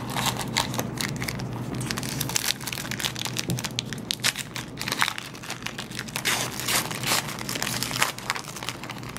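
Foil trading-card pack wrapper crinkling and tearing as it is peeled open by hand, a dense run of irregular crackles.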